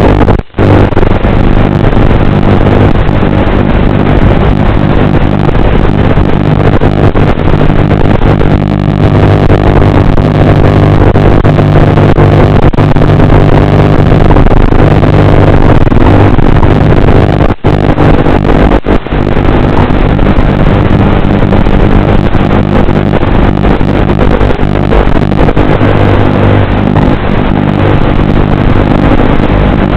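Small FPV multirotor drone's electric motors and propellers buzzing steadily in flight, with a couple of brief dips near the start and about two-thirds of the way through.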